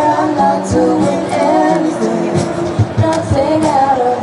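A cappella group of mixed teenage voices singing in harmony through microphones, with a low pulsing beat under the chords.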